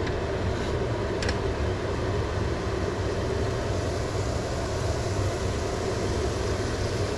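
Steady rushing noise with a low rumble from a stove turned up to high heat while salmon cooks, with a couple of faint clicks about a second in.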